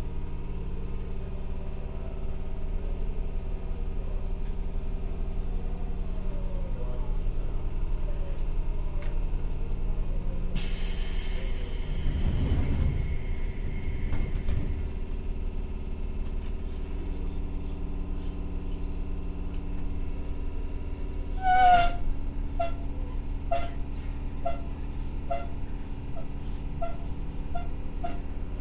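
Seibu 301 series resistance-control electric train heard from inside a car while standing: a steady hum from its equipment, with a hiss of air about ten seconds in. From about twenty-two seconds a ringing signal starts and repeats about twice a second.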